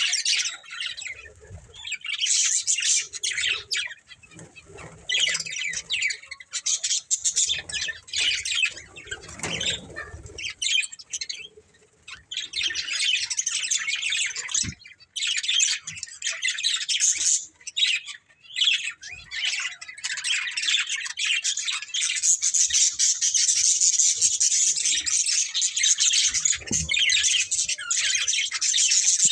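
Budgerigars chirping and chattering in rapid bursts with short pauses, running into nearly continuous chatter over the last several seconds.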